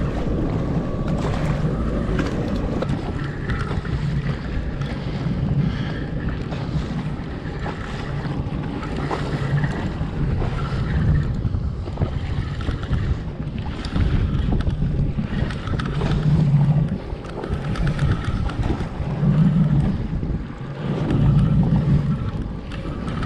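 Wind buffeting the microphone over choppy sea water, with gusts swelling louder several times in the second half.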